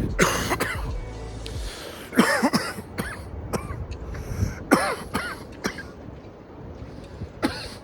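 A man coughing in a fit of about eight rough coughs in several clusters, set off by a hit of cannabis vapor from a disposable vape pen.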